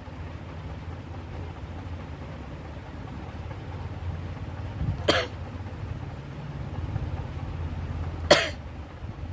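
A person sneezing twice, about three seconds apart, the second sneeze louder, over a steady low hum.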